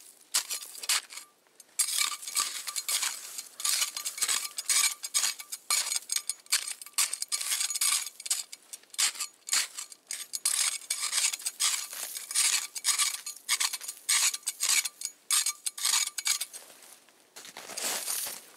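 A metal blade scraping and jabbing at packed snow around a buried board, a rapid run of scratchy strokes and clicks. Near the end, boots crunch in the snow.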